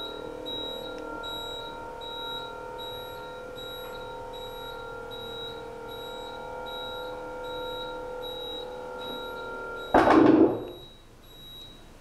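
Electric motor of a rollover pool dining table humming steadily as it turns the pool bed over, then cutting off about ten seconds in with a loud thud as the dining top settles into place. A faint high beep repeats about twice a second throughout.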